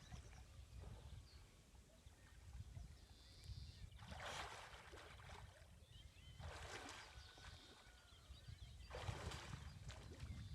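Faint water splashing in several short bursts, about a second in from four seconds, again near seven and nine seconds and at the end, as someone bathes in open water. Faint birds chirp and a low rumble runs underneath.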